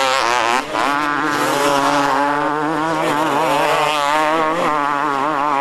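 Motocross bike engines revving on the track, the pitch wavering up and down quickly as the throttle is worked through the corners.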